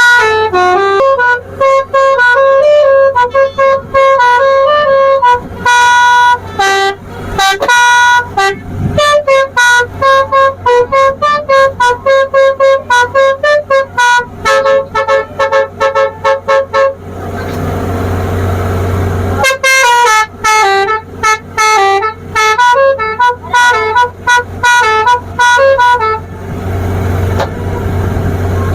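Multi-tone 'telolet basuri' musical horn on a tourist boat playing a tune in quick, short, pitched notes. It breaks off twice, about two-thirds of the way in and again near the end, leaving a low steady hum.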